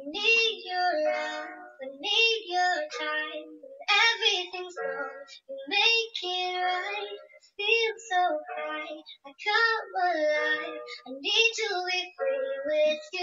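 Girls singing a song without accompaniment, in phrases with held, gliding notes and short breaks between them.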